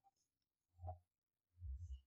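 Near silence: quiet room tone with a couple of faint low thumps, one about a second in and another near the end.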